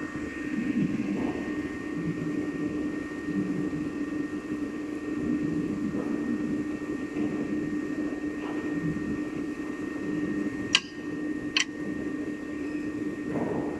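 Slitting machine running with a steady hum and a thin, high whine over it. Two sharp clicks come about a second apart near the end.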